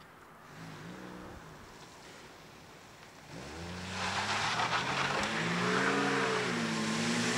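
Engine of a 1960s sedan revving hard as the car accelerates toward and along the road, growing loud from about three seconds in, its pitch rising and wavering up and down, with tyre and road noise. A fainter engine sound comes and goes about a second in.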